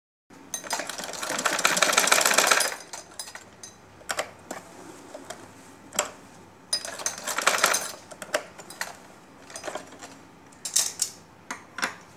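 Old black household sewing machine stitching a zip seam in runs: about two seconds of rapid stitching near the start, a second run of about a second midway, then several brief spurts. Separate clicks and knocks from the machine and the handled fabric fall in between.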